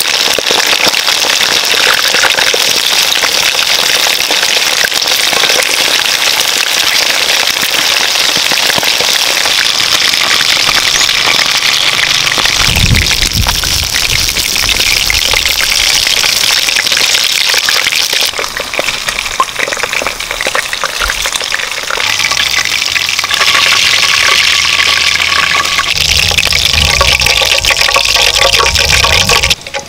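Whole quail frying in hot oil in a wok: a loud, steady sizzle and crackle that eases a little midway and cuts off sharply at the very end.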